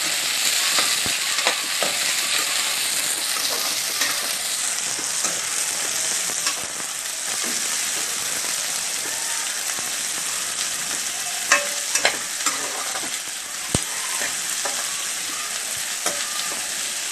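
Sliced onions and green chillies sizzling steadily in hot oil in a kadai as they are stirred with a spatula, the first stage of sautéing them. A few sharp clicks of the spatula against the pan come in the second half.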